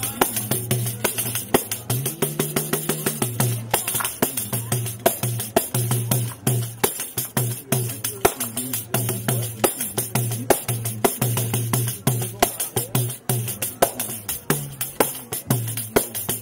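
Brazilian pandeiro, a hand frame drum with metal jingles, played solo in a fast, steady rhythm: crisp jingle strikes with the low tone of the skin coming and going beneath them.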